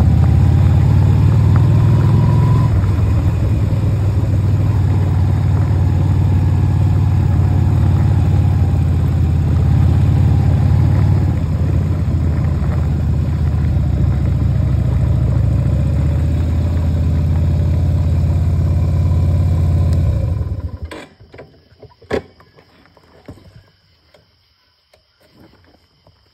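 Motorcycle engine running steadily under way, then cutting off suddenly about 21 seconds in. A single sharp click follows a second later, then it is nearly quiet.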